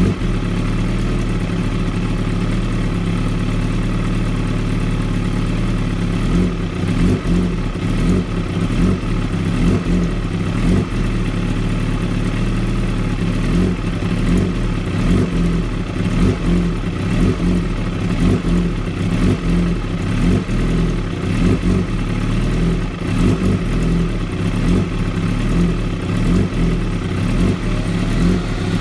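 2016 Kawasaki ZX-10R's inline-four engine idling very roughly: a steady running note broken by irregular, uneven pulses.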